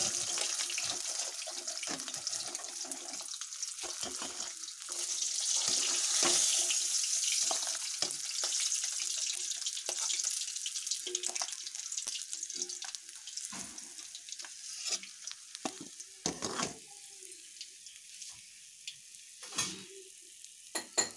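Hot oil sizzling in a metal kadai after frying fish heads, with scattered scrapes and clinks of a metal spatula against the pan and plate as the heads are lifted out. The sizzle is loudest in the first half and dies down over the second half, leaving a few separate knocks.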